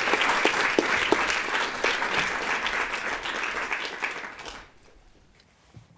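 Audience applauding, dense clapping that fades out about four and a half seconds in.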